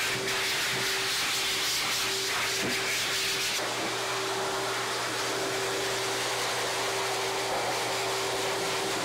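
High-velocity dog dryer running, its air blast a loud, steady rushing hiss over a steady motor hum. The hiss eases a little about three and a half seconds in.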